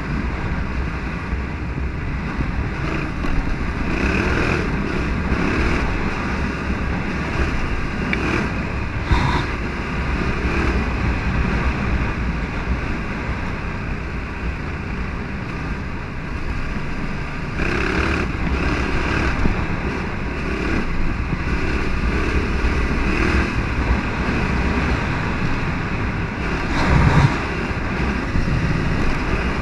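Yamaha Ténéré 700 motorcycle's parallel-twin engine running steadily while riding, mixed with wind rushing past the microphone, with the engine note swelling briefly a couple of times.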